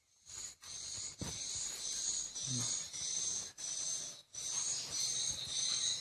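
Swiftlet calls from a swiftlet house's lure sound system played through tweeter speakers: a high-pitched chirp repeated about twice a second, each one rising slightly. A low steady hum joins about four seconds in.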